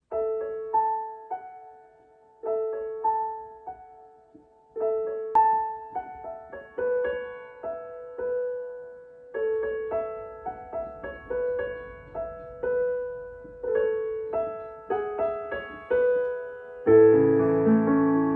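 Digital piano playing a slow, gentle melody in short phrases that grow more flowing, then fuller and louder with low bass chords near the end.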